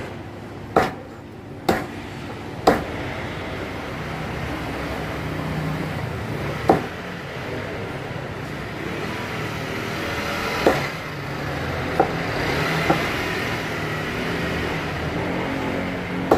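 Meat cleaver chopping whole chickens into pieces on a plastic cutting board: about eight sharp, separate chops, unevenly spaced, over a steady background noise that grows louder a few seconds in.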